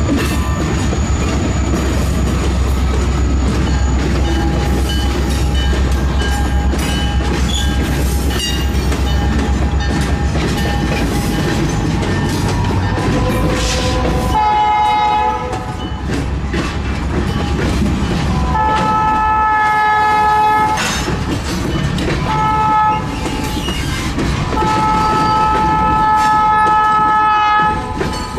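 Diesel freight locomotives rumbling past at slow speed, with wheels clicking over the rail joints. About halfway through, a locomotive's air horn sounds several notes at once in the grade-crossing pattern of long, long, short, long.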